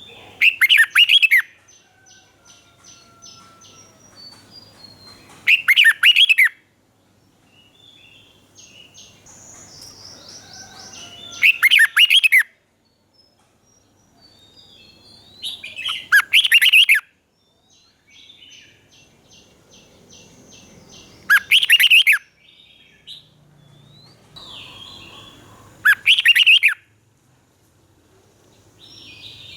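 Red-whiskered bulbul singing: six loud, short song phrases, about one every five seconds, with fainter chirps and quick rattling notes between them.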